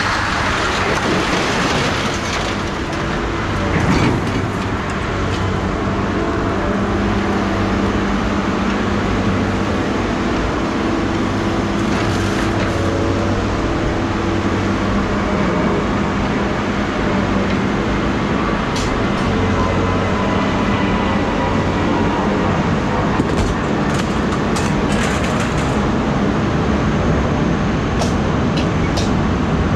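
Vehicle engine running, a steady low hum under a constant rushing noise, with a few light clicks and knocks.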